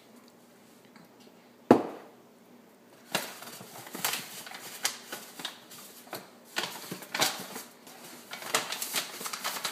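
One sharp knock on the countertop about two seconds in, then repeated crinkling and crackling of a paperboard carton being handled and pulled open.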